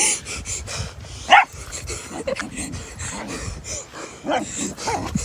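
Puppy yipping: one loud, short yip about a second and a half in, then a couple of fainter yips near the end.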